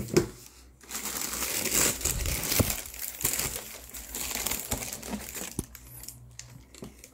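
Tissue paper and plastic wrap in a shoebox rustling and crinkling as a hand pushes through them, after two short knocks at the start. The rustling dies down near the end.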